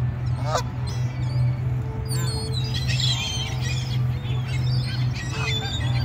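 A flock of Canada geese honking and gulls calling, many short overlapping calls, over background music with a steady low drone.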